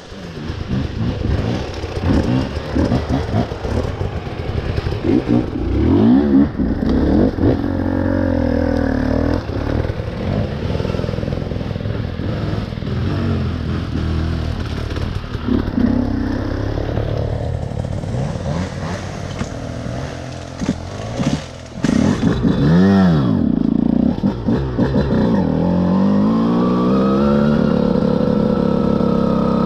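Enduro motorcycle engine revving up and down with the throttle as it rides a rough forest trail, with a sharp burst of revs a little after the middle and a long rise in revs near the end. Knocks and clatter from the bike over rough ground.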